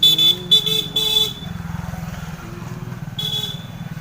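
A vehicle horn beeps in several quick blasts over the first second and a half, and once more about three seconds in, over a steady running engine.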